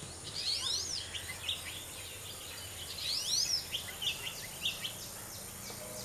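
Oriental magpie robin singing: a run of varied whistled phrases of rising and falling notes, with the strongest phrases about half a second in and about three seconds in.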